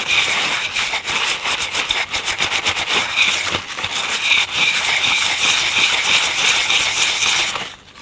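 Stiff brush scrubbing old congealed grease off a record changer's metal cam gear: a fast, steady scratching that cuts off near the end.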